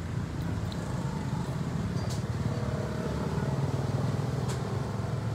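Steady low hum of an engine running, with a couple of faint clicks.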